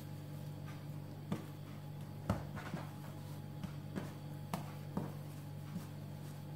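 Hands twisting and pressing strands of sweet yeast dough on a countertop, with a few scattered short taps and knocks over a steady low hum.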